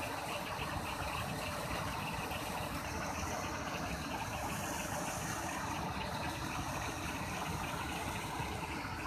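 Muddy floodwater of a swollen river pouring over the edge of a concrete causeway: a steady, even rushing of water.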